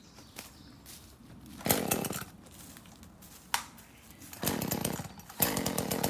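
Chainsaw being started: two short sputters, then the engine catches near the end and keeps running.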